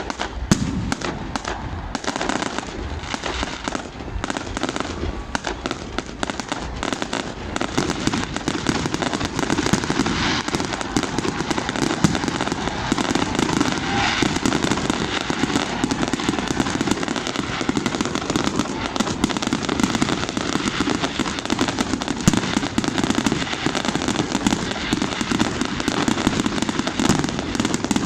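A fireworks display going off without a break: a dense, continuous crackle of many small bangs and pops.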